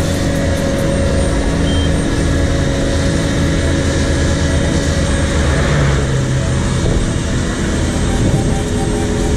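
Caterpillar AP655F asphalt paver's diesel engine and paving machinery running steadily at working load, a loud, even hum with a constant mechanical rush over it.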